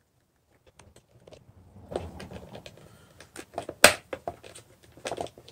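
Small clicks and taps of a screwdriver and fingers on a clock radio's plastic case as its Phillips screws are backed out. There is handling noise from about two seconds in and one sharp plastic click near four seconds.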